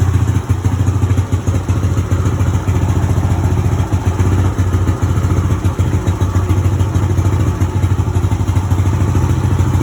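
E-ton Yukon 110 ATV's small single-cylinder engine idling steadily but not smoothly, with a little skip in it. The owner ties the rough running to fuel that went stale while it sat for years and fouled the carburetor.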